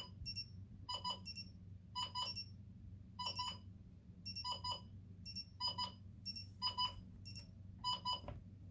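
Two electronic clock-radio alarms beeping at once, each in its own rhythm. One repeats a double beep about once a second, and the other slips a higher-pitched double beep in between, over a low steady hum.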